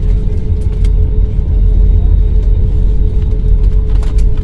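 Airliner heard from inside the cabin while landing: a loud, steady low rumble with a steady hum through it.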